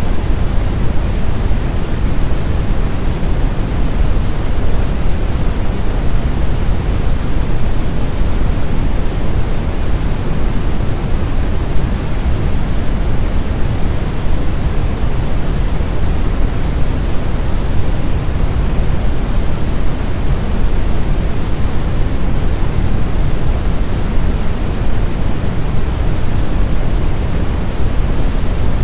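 Steady, deep brown noise: a smooth, rumbling hiss with most of its weight in the bass, fading off toward the treble, with no changes or events.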